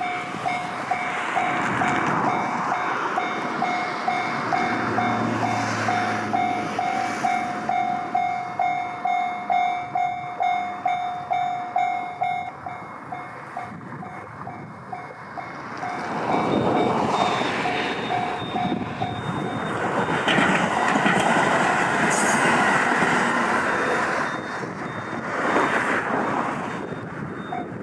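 Japanese level-crossing warning bell ringing in a steady 'kan-kan' about twice a second, then an E491 series East i-E track-inspection train passing over the crossing, its running noise swelling over the second half and fading near the end.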